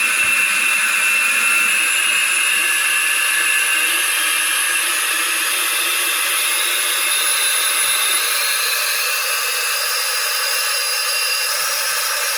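FMS A-10 RC model jet running up toward full throttle: a steady jet whine with a hiss, from its ducted fans and its onboard Model Sounds Inc. jet-engine sound card, its high tones creeping up in pitch during the first half.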